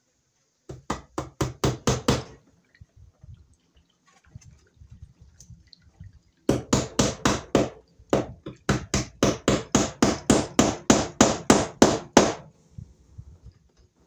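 A hammer driving a cable staple into wood: a quick run of sharp taps about a second in, then after a pause a longer run of steady blows, about four a second, with one short break partway through.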